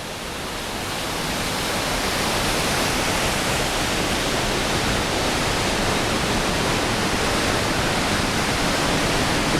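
Upper Falls of the Yellowstone River roaring: a loud, steady rush of falling water that swells over the first couple of seconds and then holds level.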